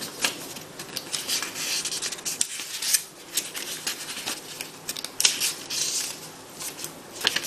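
Pages of a thin paper instruction booklet being flipped through by hand: a run of irregular crisp rustles and flicks.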